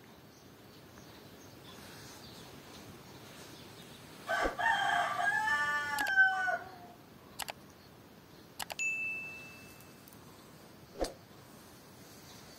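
A rooster crows once, a long call of about two seconds that rises, holds and falls away. A few sharp clicks and a soft knock follow.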